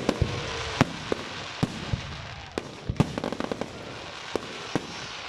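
Display fireworks going off: irregular sharp bangs, a quick cluster of them about three seconds in, over a continuous crackle and hiss from the bursting shells.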